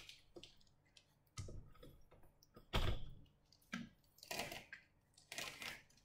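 Roller chain links of a Honda CB500X's new final drive chain clicking and clattering in four short bursts as the chain is fed by hand around the rear sprocket, the loudest near the middle with a dull knock.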